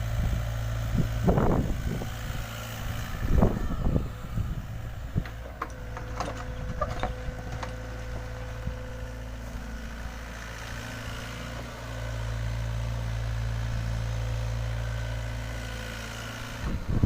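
LiuGong 906F mini excavator's diesel engine running steadily, with two heavy bursts of noise about one and a half and three and a half seconds in and a run of sharp clinks a few seconds later. The engine works harder for a few seconds after about twelve seconds in.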